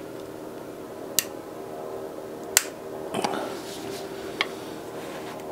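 Pry bar clicking against a plastic ignition coil stuck in the cylinder head, a handful of sharp clicks about a second apart as it is levered. The coil is stuck because it has melted into its tube from the engine overheating.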